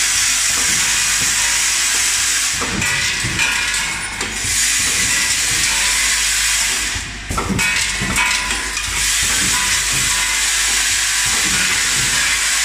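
Automatic sachet-packing line for fasteners running: vibratory bowl feeders shaking plastic wall plugs give a steady, loud high hiss, which dips briefly at about four and seven seconds in.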